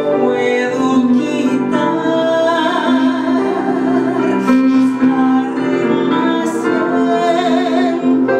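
A woman singing a Christian song solo in full voice, over sustained instrumental accompaniment.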